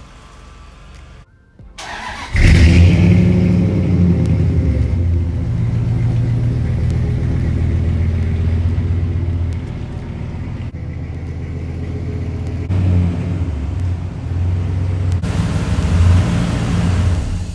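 2002 Dodge Ram 1500's engine starting about two seconds in, then running on with the revs rising and falling a few times.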